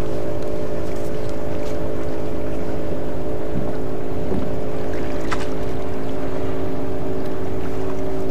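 Boat motor running with a steady, even hum, with wind rumbling on the microphone.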